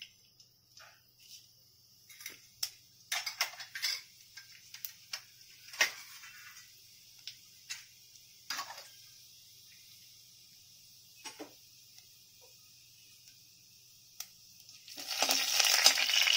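Fennel seeds tempering in hot oil in a kadai: a faint steady sizzle with scattered crackles and pops. Near the end a slotted ladle stirs the seeds and the sizzling gets much louder.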